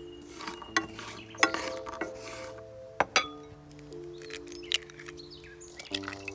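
Light background music with held chords, over which walnuts rattle under a wooden spatula in a frying pan, then eggs are broken into a glass bowl, giving a few sharp clicks.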